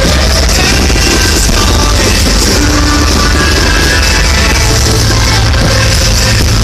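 Loud music in a rock style, with a heavy bass line and no let-up in level.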